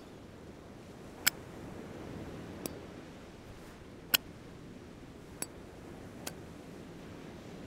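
A hand-held lighter's flint wheel struck about six times, roughly once a second, each strike a sharp click, two of them much louder than the others; the lighter does not catch.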